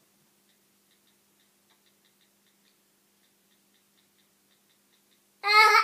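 Faint, light ticking for most of the stretch, then near the end a baby's short, loud, high-pitched vocal squeal.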